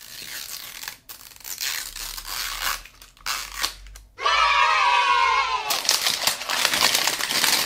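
Plastic wrapping being torn and peeled off a toy capsule, crinkling as it comes away. From about four seconds in the handling gets louder as the plastic capsule is pulled open.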